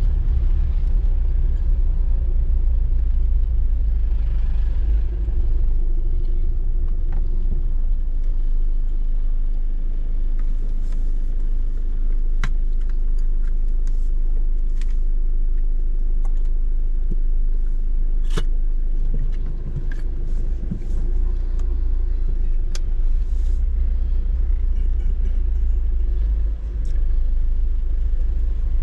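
Low steady rumble of a car in motion, with a steady engine hum and a few sharp clicks in the middle stretch.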